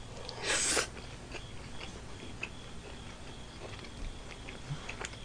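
A person chewing a mouthful of cheese-topped dak galbi close to the microphone: a short hissing burst about half a second in as the bite goes in, then soft, irregular chewing clicks.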